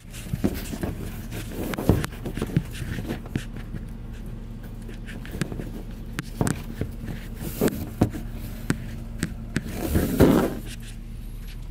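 Steady low hum inside a car cabin, with scattered clicks and knocks and a short rustle about ten seconds in from the phone being handled against the dashboard.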